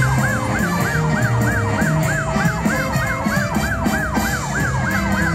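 Slot machine playing a siren-like warbling sound effect, a rising-and-falling sweep repeating about three times a second, over its own electronic music with a pulsing bass line.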